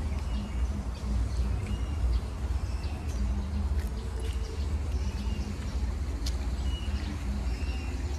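Outdoor ambience: a low steady rumble with birds chirping briefly several times over it, and a few sharp clicks.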